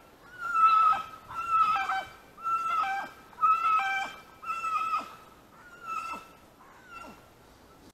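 A jagdterrier's high yelps or whines, about eight calls roughly a second apart, growing fainter towards the end before cutting off.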